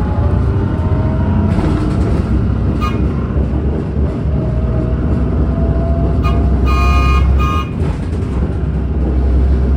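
Steady road and engine rumble of a car driving through city traffic. A vehicle horn gives a short beep about three seconds in, then sounds in a few short toots from a little past six seconds to about seven and a half seconds in.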